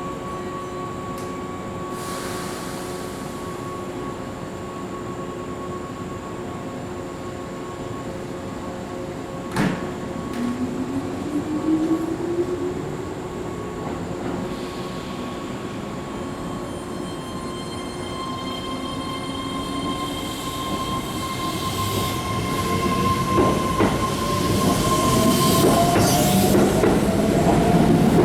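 Keihan electric train pulling out. The motor whine rises in pitch as it gathers speed, and the wheel noise grows louder toward the end.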